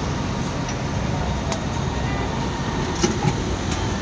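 Steady low rumble of roadside traffic and stall noise, with a few sharp metal clicks, about a second and a half in and twice around three seconds, as a steel ladle spreads dosa batter across a large griddle.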